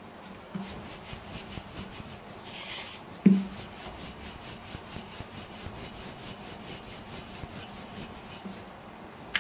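Wooden rolling pin rolling chapathi dough back and forth on a floured countertop: a steady run of rhythmic rubbing strokes, with one sharp knock about three seconds in.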